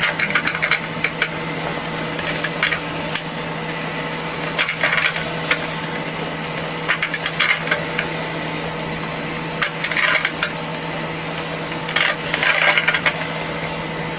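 Irregular clinks and clatters of small hard parts and tools being handled, in clusters every couple of seconds, over a steady background hum.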